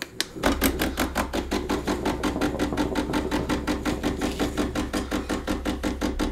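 The espresso pump of a De'Longhi Dedica Maestro Plus (EC950) switches on about half a second in and runs with a low hum and a rapid, even pulsing as the machine pulls a shot.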